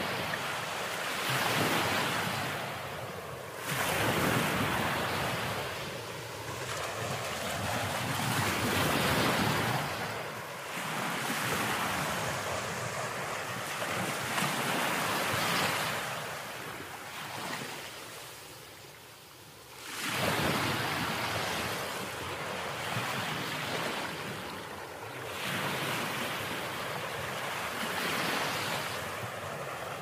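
Ocean surf breaking and washing up a sandy beach: a steady rush that swells and eases with each incoming wave. It dips into a brief lull about two-thirds of the way through, then a fresh wave crashes in.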